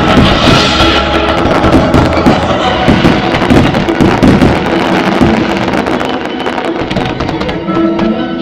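Fireworks barrage, aerial shells and ground fountains, crackling and banging densely over loud music played with the display. The crackling thins out near the end.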